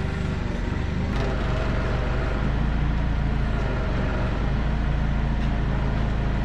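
Engine of a tractor or similar farm machine running with a steady low drone, with a single click about a second in.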